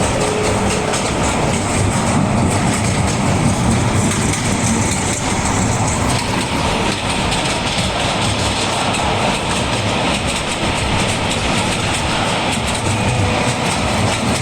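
A train running on rails: steady running noise of wheels on track.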